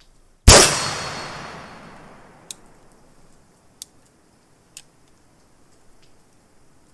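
A single shot from a .44-calibre brass-frame reproduction 1858 Remington New Model Army percussion revolver, loaded with black powder, with a long echo that fades over about two seconds. A few faint sharp clicks follow.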